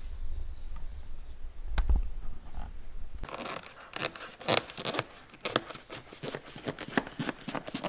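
Irregular scraping, rustling and crinkling as an insulated sensor cable is pushed and tucked behind a car's plastic interior trim panel. This starts about three seconds in, after a low rumble and a single sharp click.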